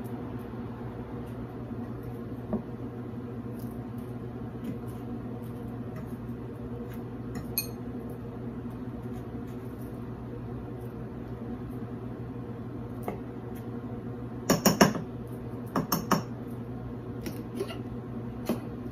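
A metal fork clinking and tapping against a glass bowl and a plate while an onion ring is dipped in batter and dredged in flour, with a cluster of louder clinks about fifteen and sixteen seconds in. A steady low hum runs underneath.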